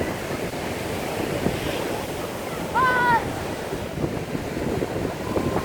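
Sea waves breaking and washing on a sandy beach, with wind buffeting the microphone. About three seconds in, a short high-pitched call rises and falls briefly above the surf.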